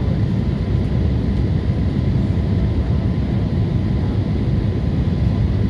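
Steady, loud low rumble of noise with a faint steady hum above it, unchanging throughout.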